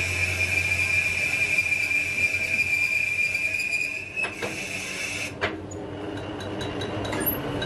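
Lathe facing a truck clutch flywheel, running with a steady high-pitched whine over machine noise. The whine cuts off abruptly a little after five seconds in, with a sharp click. Lighter running with faint ticks follows.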